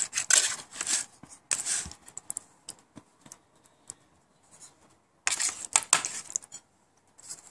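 Plastic spoon scraping and tapping against a thin aluminum pan while scooping shredded chicken filling. It comes in two short bouts of scratchy clicks, one at the start and another about five seconds in, with a quiet stretch between.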